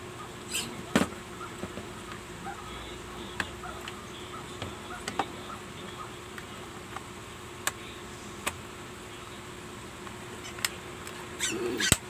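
Scattered clicks and taps of a screwdriver on the plastic housing of a handheld vacuum cleaner as the shell is pried apart, the loudest about a second in and a cluster near the end, over a faint steady hum.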